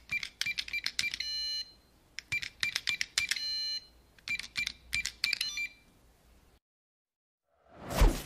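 Typewriter sound effect: three runs of rapid key clicks, the first two each ending in a short ring of the bell. After a brief silence, a loud whoosh comes near the end.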